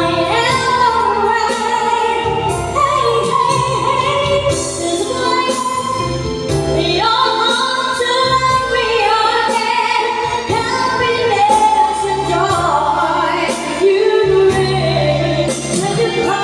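A girl and a woman singing a pop ballad duet into microphones, over backing music with a steady bass line.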